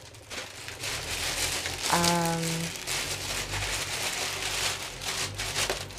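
Packaging crinkling and rustling as a parcel is handled and unwrapped, with a brief hummed note from a woman about two seconds in.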